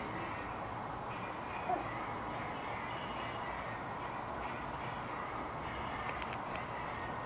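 Steady outdoor background hiss with a high, evenly pulsing insect chirr, and a faint short sound about two seconds in.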